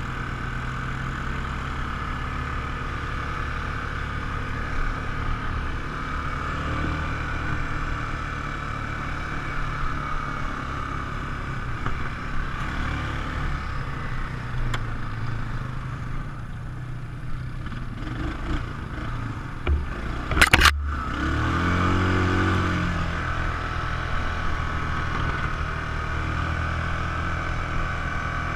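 ATV engine running steadily while riding, with a sharp clatter about two-thirds of the way through, followed by the engine revving up and settling back.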